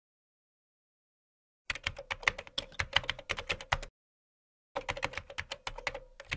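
Keyboard typing: two quick runs of keystrokes of about two seconds each, the first starting about a second and a half in, with a short pause between them.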